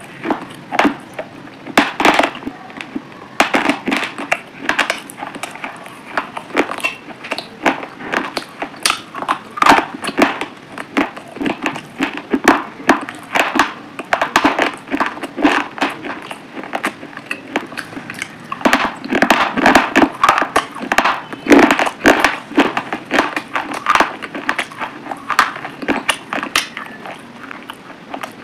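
Close-miked chewing of crunchy food: a dense, irregular run of crisp crunches and crackles as the food is bitten and ground between the teeth.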